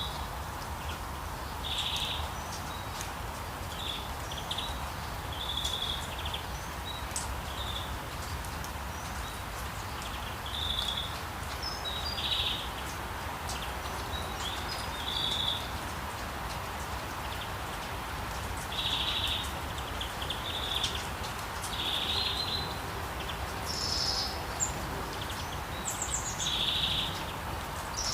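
Steady rain hiss with a low rumble underneath, while birds chirp in short calls every second or two, with a few higher-pitched chirps near the end.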